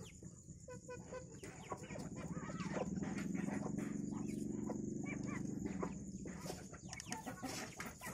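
Village chickens clucking while pecking at scattered feed, with many short calls and clicks. A louder low hum swells up about two seconds in and fades out about six seconds in.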